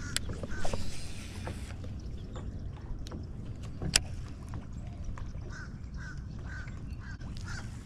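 Ducks quacking, a run of short calls through the second half, over a steady low rumble, with a sharp click about four seconds in.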